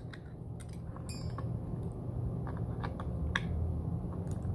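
Scattered light clicks and taps of metal hand tools against the plastic casing and circuit board of a lithium battery pack as the board is pried out, over a low steady hum.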